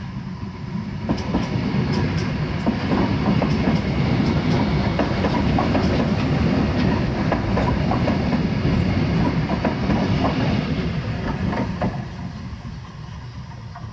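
KRL KFW i9000 electric commuter train passing close by, a heavy rumble of wheels on rail with repeated sharp clacks as the bogies roll over the rail joints. It swells over the first couple of seconds, stays loud, and falls away about twelve seconds in.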